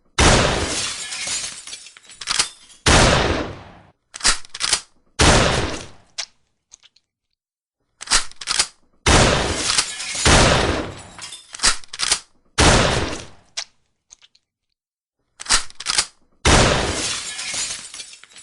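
Shotgun shots: about seven loud blasts in three groups, each ringing out for a second or two, most preceded by one or two quick sharp clicks.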